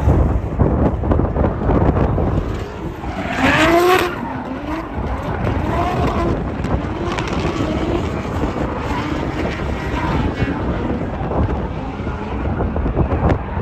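Drift car engine revving hard, rising in pitch several times in a row as it accelerates through the course. Heavy wind buffets the microphone underneath.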